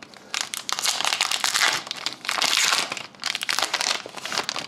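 Plastic-foil wrapper of a hockey trading card pack crinkling and crackling in the hands in uneven surges, as a pack is handled and torn open.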